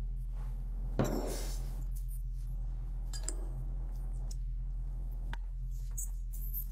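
Metal spoon knocking and clinking against a glass mixing bowl while stirring and scooping a chopped egg mixture, with one louder knock about a second in and scattered light clinks after. A low steady hum runs underneath.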